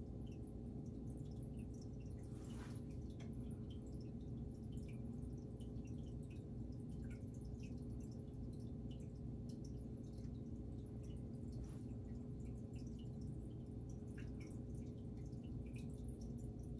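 Faint steady low hum, with scattered soft ticks and small clicks throughout.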